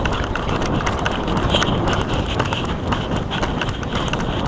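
A person running: quick, hurried footsteps with gear rattling and clicking and a steady rush of noise.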